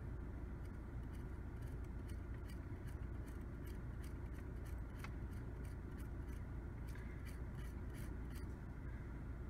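Audi A5 multifunction steering wheel's left thumbwheel clicking through its detents as it is rolled to zoom the cockpit map, a run of short clicks about two or three a second that stops near the end. Under it, a steady low cabin hum.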